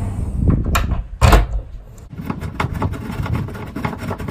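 A 30-amp shore power inlet being fitted into a van's sheet-metal side: a click, then a loud knock about a second in, then a run of rapid, irregular clicks.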